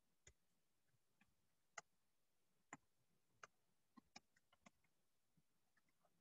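Near silence: room tone broken by about a dozen faint, sharp clicks at irregular intervals, bunched a little past the middle.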